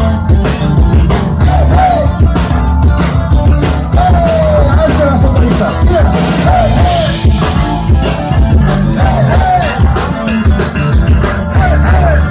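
Live punk rock band playing loudly: drums, bass and guitars with singing, the recording overloaded and harsh.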